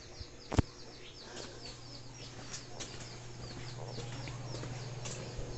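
Chickens clucking and cheeping in a farmyard, a run of short, high, falling chirps. A single sharp knock sounds about half a second in.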